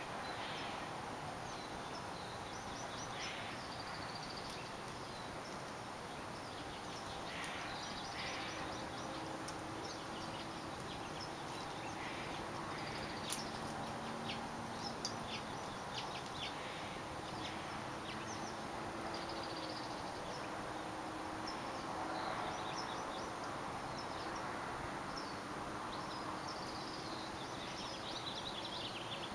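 Outdoor ambience: a steady background hiss with scattered short bird chirps. A sharp click sounds about 13 seconds in, followed by a few fainter clicks.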